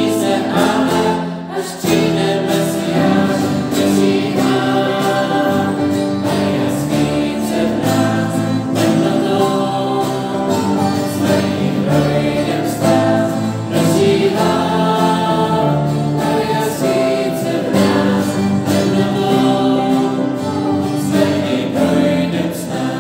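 Church choir singing a hymn together, many voices in harmony, in the church's reverberant space.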